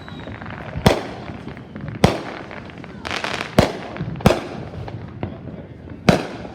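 Fireworks going off: about five sharp bangs spaced a second or so apart, each echoing briefly, with a stretch of crackling near the middle.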